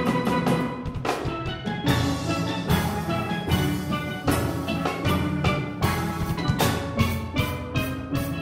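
Steelband playing: a section of steelpans sounding together over a drum kit and percussion, with strong accented beats a little more than once a second.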